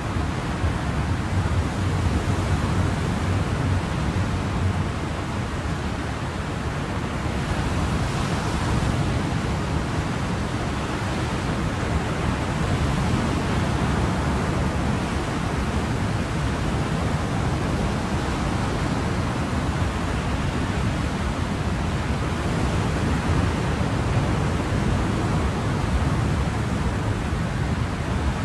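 Ocean waves washing ashore, a steady rushing surf with gentle swells in loudness.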